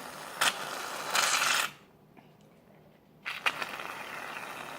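Aerosol can of shaving cream spraying: a short hiss about a second in, then a longer steady spray starting about two-thirds of the way through. The shaving cream is being added to make a sticky slime fluffier.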